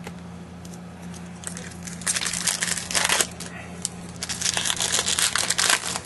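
Foil wrapper of a Topps Chrome trading-card pack crinkling as it is handled and torn open, in two bursts of a second or so each, the first about two seconds in.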